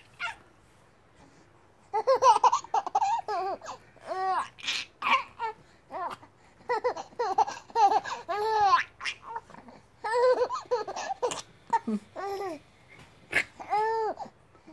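A baby laughing in a long run of short high peals, each rising and falling in pitch, mixed with babbling; it starts about two seconds in.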